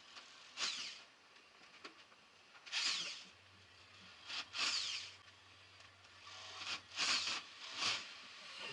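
A handheld power tool run in about five short bursts, each with a brief falling whine.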